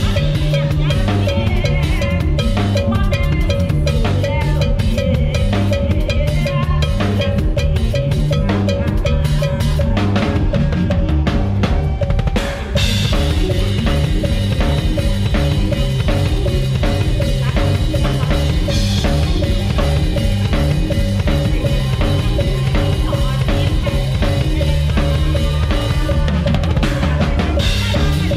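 Drum kit played hard and fast in a live band, bass drum and snare strokes driving over the band's music, with a brief break about twelve seconds in.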